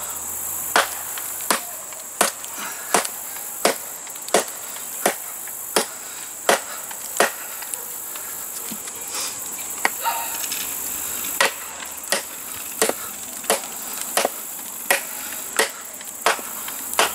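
Ontario Knife Company SP8 machete chopping through a 3 to 4 inch log, steady blows into the wood about two-thirds of a second apart, with a pause of a few seconds partway through before the rhythm resumes.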